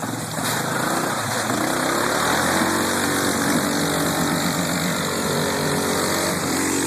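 ATV engine running under throttle, growing louder over the first two seconds and then holding steady.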